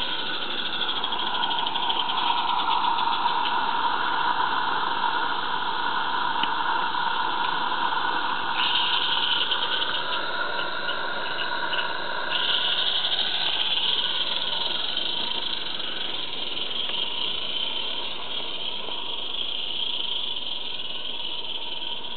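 Garden-scale model locomotive running along the track hauling covered freight vans, a steady whirring hum with a hiss over it.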